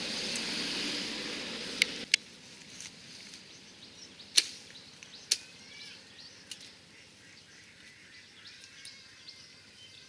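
A steady noise for about two seconds that cuts off, then a quiet outdoor background with a few sharp clicks and snaps as twigs and leafy branches are handled, and faint bird chirps.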